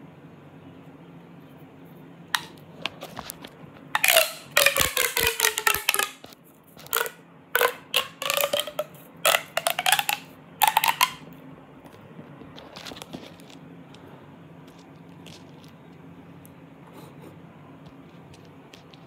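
Plastic pop tube being stretched and squeezed: a run of short, buzzy zipping sounds with a ringing pitch, some gliding down, from about four to eleven seconds in.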